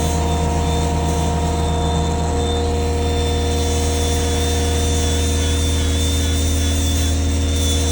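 An engine running steadily: a constant low hum with a faint wavering high whine above it.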